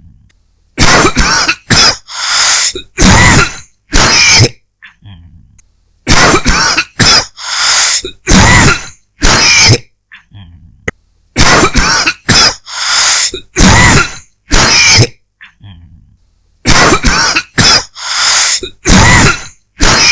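A person dry coughing in about four fits of several coughs each, with pauses of a second or two between the fits.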